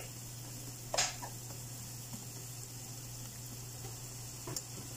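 Chopped carrots, onion and garlic sizzling steadily in melted butter in a frying pan, with one short knock about a second in.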